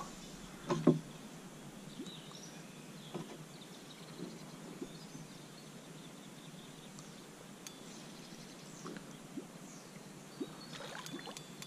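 Quiet outdoor ambience with faint, scattered bird chirps and a few light clicks, after one short, louder sound about a second in.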